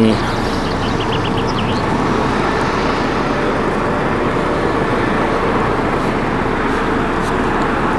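Steady background traffic noise: an even rumble and hiss with no single event standing out. A few faint, quick ticks come about a second in.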